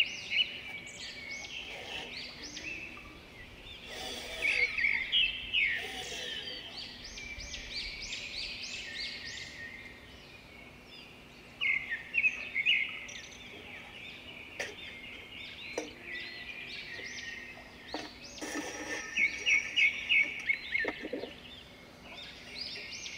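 Songbirds singing: repeated runs of quick, high chirps that come and go in bursts, over a faint steady hum.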